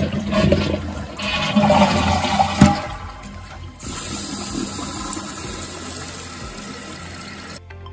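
Toilet flush heard from the open tank: water rushing out past a new Fluidmaster flapper, with a single knock about two and a half seconds in. After about four seconds the rush drops to a steadier, quieter hiss of the tank refilling as the flapper seals, which stops suddenly just before the end.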